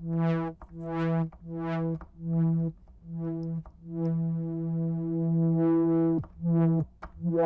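Korg Volca Keys analog synthesizer repeating the same low note about every three quarters of a second. Each note starts bright and quickly mellows as the filter closes. One longer held note comes in the middle, and two quick downward pitch dips come near the end, as its LFO and envelope settings are turned.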